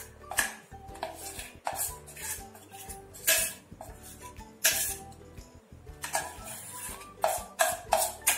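Metal spoon scraping and clinking against the inside of a stainless-steel saucepan as cake batter is scooped out into a small steel bowl: repeated, irregular scrapes and clinks, each ringing briefly. Background music plays underneath.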